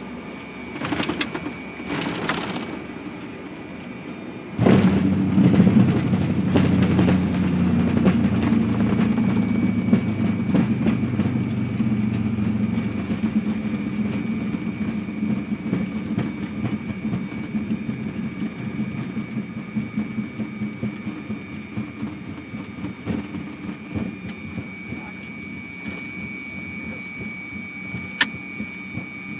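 Airliner on its landing rollout, heard from the cockpit: after two brief noises in the first few seconds, the engines' reverse thrust comes on suddenly about four and a half seconds in as a loud low rumble, which slowly dies away as the aircraft slows. A steady high whine runs underneath.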